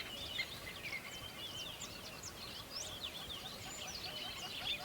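Several birds chirping and calling together in a busy chorus of quick, high notes that slide up and down, with a lower run of short repeated notes joining near the end.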